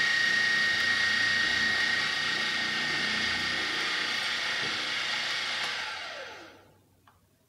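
Milling machine spindle with a drill chuck running with a steady whine, then switched off and winding down in pitch to a stop about six seconds in.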